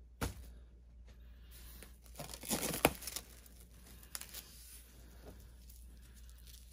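Plastic cling film crinkling as it is folded around a ball of pastry dough, loudest a couple of seconds in. A single soft thump just after the start as the dough is set down on the counter.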